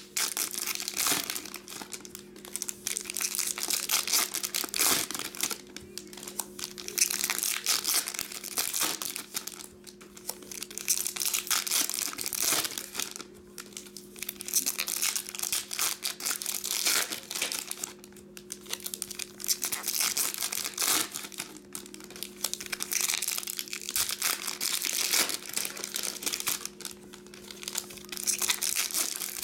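Foil wrappers of Topps Stadium Club baseball card packs crinkling and tearing as the packs are opened by hand, in repeated bursts every second or two. A faint steady hum runs underneath.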